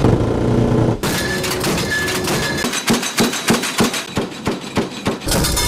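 AC-130 gunship's turboprop engines droning steadily, with a run of sharp, uneven strikes several per second through the middle, typical of the gunship's cannon firing.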